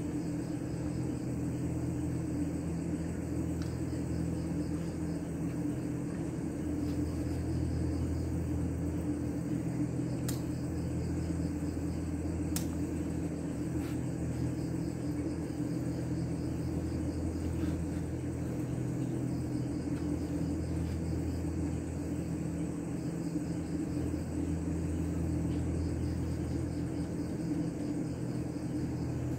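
Crickets chirping in repeated short trains over a steady low hum, with two sharp clicks in the middle.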